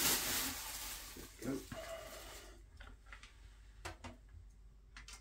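Plastic wrapping rustling and crinkling as it is pulled off a telescope tube, loudest at the start and dying away after a couple of seconds. A few light knocks follow as the tube is handled and laid down.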